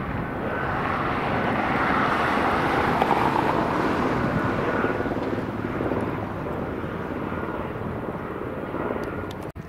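Twin-engine jet, the vice-presidential plane, climbing away after takeoff: a steady jet engine noise with a faint high whine, loudest a few seconds in and then slowly fading as it recedes.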